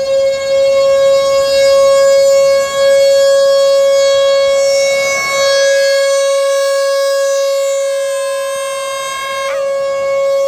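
T-128 outdoor warning siren sounding its test: one steady, loud, high tone at a constant pitch, swelling and easing slowly in loudness.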